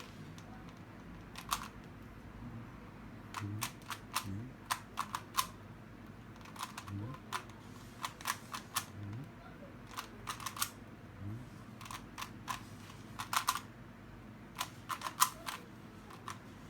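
Rubik's cube being turned quickly by hand: irregular runs of sharp plastic clicks as the layers snap round, in quick clusters with short pauses between.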